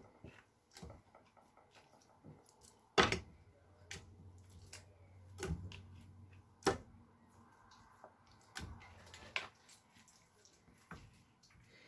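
Pieces of raw mutton chop dropped into an aluminium pressure cooker, making soft, irregular knocks and thuds against the metal pot, about four of them louder.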